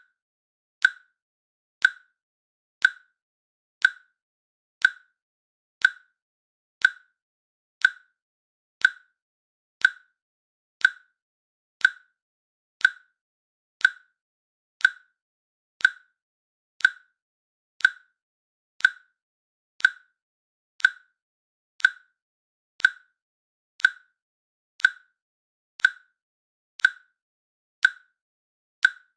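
Countdown timer clicking once a second: short, sharp, evenly spaced ticks with silence between.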